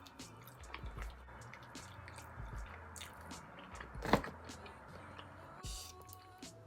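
Close-up eating sounds of a person biting and chewing a buffalo chicken wing flat: scattered small clicks, with one sharper click about four seconds in, over a faint low hum.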